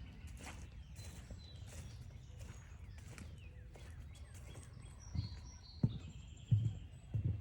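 Footsteps on a forest trail, with low thumps landing about every two-thirds of a second in the second half, over a steady low rumble. Short high bird chirps and whistles come and go above them.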